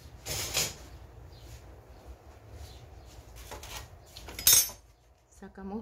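Tableware being handled on a table: a scrape near the start, a few light knocks, and a sharp clink about four and a half seconds in.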